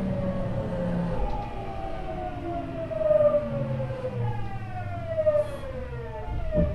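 Hitachi GTO-VVVF inverter and traction motors of a Tokyu 9000 series train whining in several tones that fall steadily in pitch as the train slows under braking, over the low rumble of the wheels. A couple of knocks come near the end.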